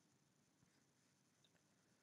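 Near silence: faint room tone, with two tiny ticks about half a second and a second and a half in.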